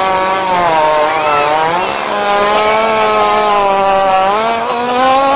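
Hippopotamus farting: one long, loud, unbroken buzzing tone that wavers in pitch and steps slightly higher about two seconds in.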